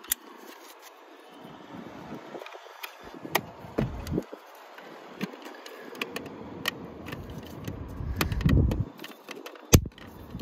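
Handling noise from plastic door trim and a cloth-taped wiring harness being worked by gloved hands: scattered clicks and rustling, with occasional low rumbles and one sharp click near the end.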